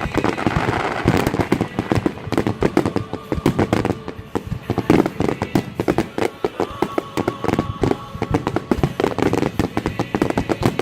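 Fireworks finale barrage: a dense, continuous run of bursts and crackling reports, many a second.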